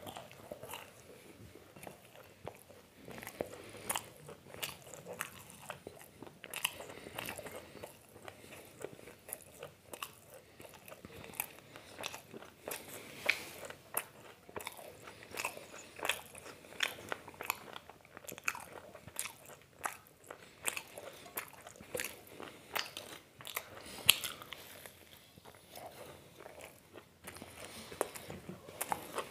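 Close-miked eating: a person chewing, biting and crunching food, with irregular wet mouth clicks and smacks and one louder snap late on.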